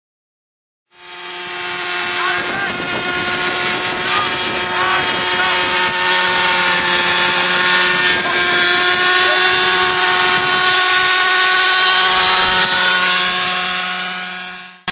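Model helicopter's engine and rotor running steadily in flight: a loud, even whine made of many steady tones. It fades in about a second in and fades out just before the end.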